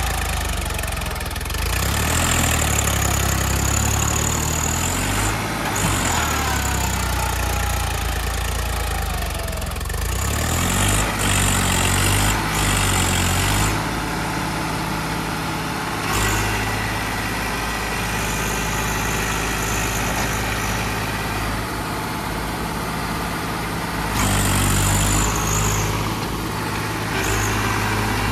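Swaraj 744 XT tractor's three-cylinder diesel engine working under load, revving up and down as it hauls a loaded trailer through deep mud.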